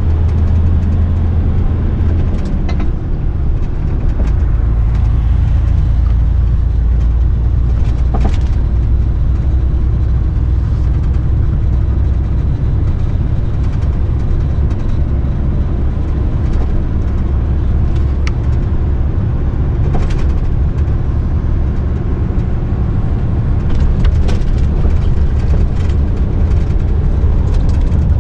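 Diesel engine and road noise of a Mercedes-Benz truck under way, heard inside the cab as a steady low drone. The engine note drops lower about two to three seconds in, and a few short clicks sound now and then.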